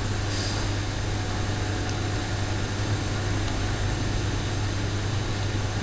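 Steady low hum with an even hiss: background noise with no distinct events.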